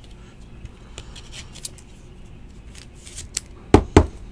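Light clicks and rustles of a trading card in a plastic sleeve being handled, then two sharp knocks close together near the end as it is set down on the table.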